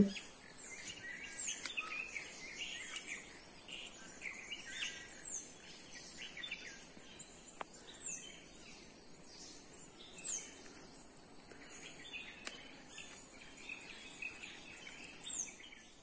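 Morning bird chorus in woodland: many birds chirping and calling, with a short falling whistle repeated every few seconds, over a continuous high-pitched insect drone.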